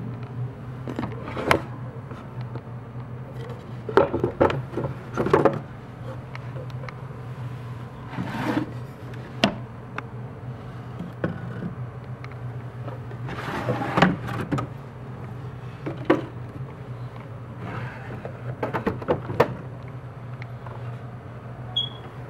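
Wooden drawers of an old cabinet being pulled out and pushed back in, with irregular wood-on-wood knocks and sliding scrapes, over a steady low hum.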